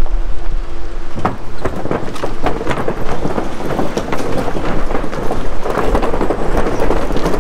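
Wooden bridge planks clattering and knocking under a Fiat Ducato camper van's tyres as it drives slowly across, over a low rumble. The clatter starts about a second in, as the wheels roll onto the planks, and keeps up irregularly.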